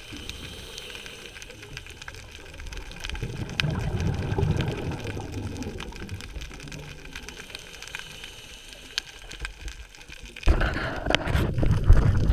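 Underwater ambience picked up by a camera in its housing: a low rumbling wash of moving water with scattered sharp clicks and crackles, turning suddenly louder and more churning about ten seconds in.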